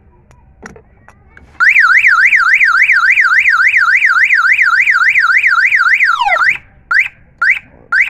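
Car alarm siren warbling rapidly up and down, about four sweeps a second, for about five seconds. It ends in a falling glide, followed by three short chirps.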